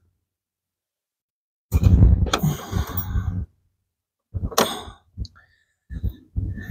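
A man sighing and breathing hard with effort while he works a tight part into place, starting about two seconds in. Two sharp clicks come from the tool and part, about two and four and a half seconds in.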